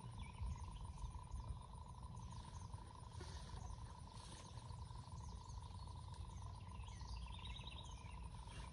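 Outdoor ambience: scattered small bird chirps over a steady insect drone and a low rumble, with a quick run of repeated bird notes near the end.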